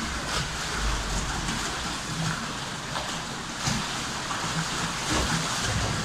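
Water splashing and pattering steadily around a water-ride boat.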